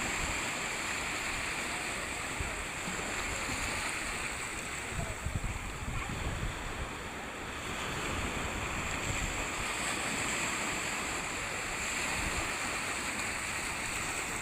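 Ocean waves breaking and washing in steadily, with wind rumbling on the microphone now and then.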